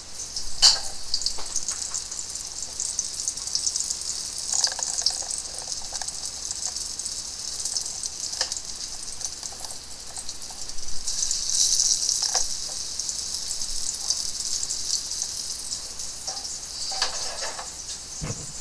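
Olive oil sizzling in a pot on the stove as a steady high hiss, swelling louder for a second or so around eleven seconds in, with a few soft clicks and knocks.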